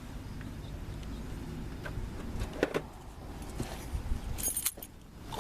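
A set of keys handled against a truck door: a few light clicks, then a brief jingle of keys a little before the end, over a steady low rumble.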